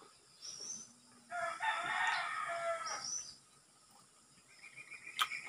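A rooster crowing once, a single long call of nearly two seconds, with short high bird chirps before and after it and a fast high trill near the end.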